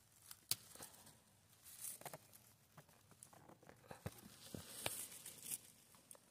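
Close, quiet rustling and crackling of dry grass and moss as a hand picks chanterelle mushrooms from the ground. Several sharp little snaps come through, the loudest about half a second in and another near the five-second mark.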